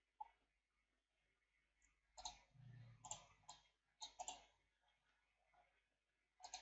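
Near silence with a scattering of faint, irregular clicks from a computer mouse and keyboard.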